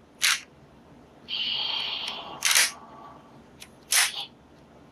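Plastic clicks from a Kamen Rider Ryuki Dragvisor Zwei toy gun being handled: three short sharp clicks. A little over a second in, a steady high sound lasts about a second.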